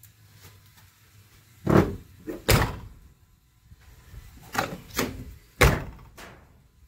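Door of a 1994 Chevrolet pickup cab opening and shutting as someone climbs out: a series of sharp clunks and thuds, the loudest about two seconds in and again near the end.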